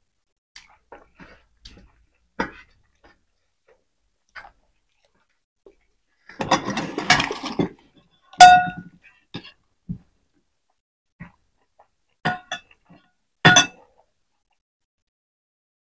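Stainless steel plates and serving bowls clinking and scraping as food is taken and eaten by hand, with scattered small clicks. A scraping stretch runs just before a loud, ringing metal clink about eight seconds in, the loudest sound, and two more sharp ringing clinks come near the end.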